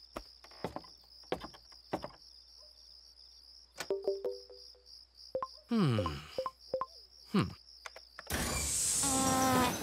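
Cartoon sound effects of a train cab's control panel being worked: a series of button clicks, short electronic beeps and falling electronic sweeps, then a burst of hissing near the end, over a steady chirring of crickets.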